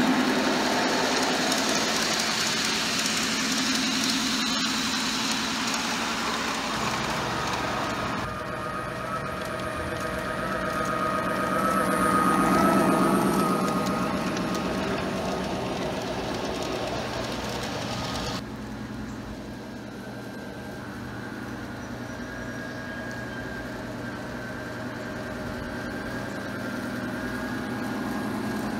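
G-scale LGB New York Central F7 model diesel train running along garden track: a steady diesel-engine rumble with the rolling of the wheels on the rails. The sound changes abruptly about eight seconds in and again about eighteen seconds in.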